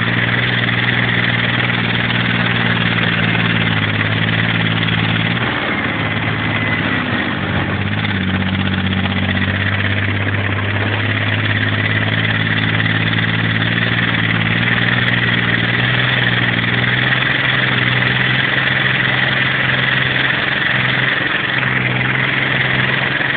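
Military vehicle's engine running hard while driving over rough ground, with a heavy rush of wind and running noise and a steady high whine. The engine note shifts briefly about five seconds in, then settles again.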